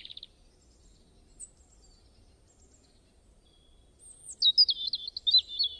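A songbird singing: a short high trill at the very start, then near the end a run of quick, high whistled notes that jump up and down in pitch.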